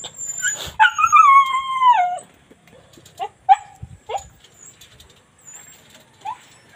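An animal's long, high whine about a second in, held for over a second and falling off at the end. It is followed by a few short yelps.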